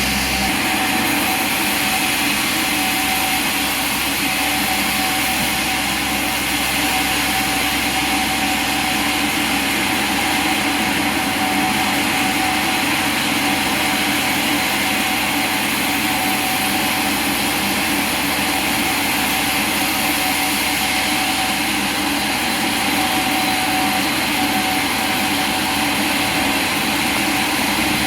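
Sawmill machinery running steadily: a continuous mechanical hum and hiss with a few held tones, with no single cut or impact standing out.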